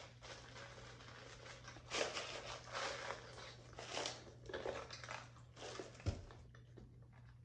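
A person chewing and crunching close to the microphone, in several short bursts between about two and six seconds in, with one sharp click near the end.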